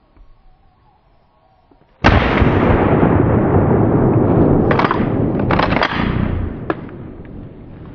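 A shotgun shot at a turkey about two seconds in, followed by about four seconds of loud, rough noise that fades away.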